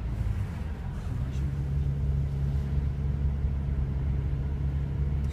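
Car engine and road noise heard from inside the cabin while driving: a steady low hum that steps up slightly about a second in.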